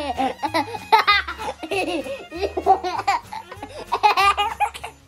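Toddler laughing hard in rapid, repeated bursts of high-pitched giggles.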